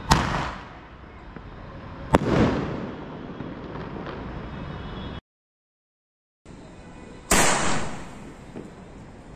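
A five-shot sky shot firework firing: a sharp bang at the start and another about two seconds later, each fading away over a second or so. The sound cuts out for about a second, then another loud bang comes about seven seconds in.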